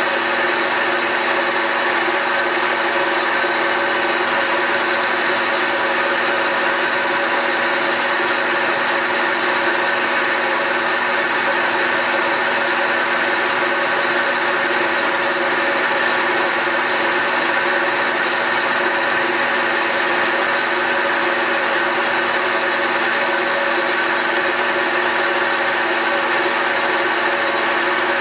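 Smart & Brown Model L lathe running at a steady speed: an unchanging machine hum with several constant tones.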